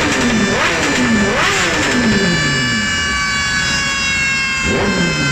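2019 Honda CBR1000RR SP inline-four, through an Arrow Pro-Race exhaust, revved on a dyno in quick throttle blips, each rev rising and falling away. About two seconds in one rev falls away longer and lower before a new blip near the end. Beneath it a high whine slowly drops in pitch.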